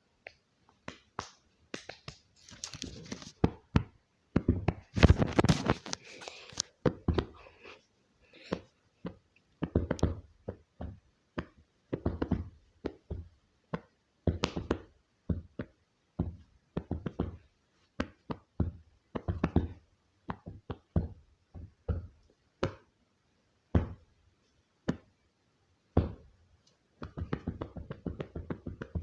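Irregular tapping and knocking close to the microphone, with denser rustling handling noise about two and five seconds in.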